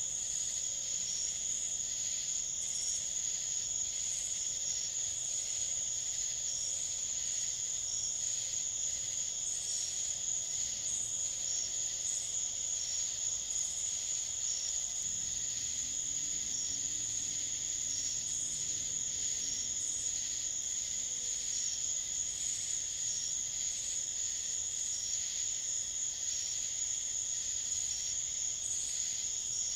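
Night chorus of crickets and other insects: a steady high-pitched trill, with another insect calling in short, regular pulses over it.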